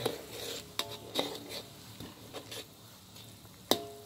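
Metal spatula knocking and scraping against a wok while stirring a hot spice broth, each knock leaving a short metallic ring, the loudest near the end. A soft sizzle fades during the first second.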